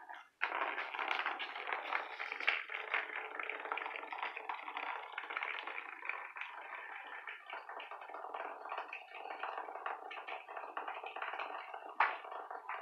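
Battery-powered Hexbug toy buzzing and rattling as it vibrates across a hardwood floor, a dense run of fine rapid ticks. The sound drops out briefly just after the start, and there is one sharp knock near the end.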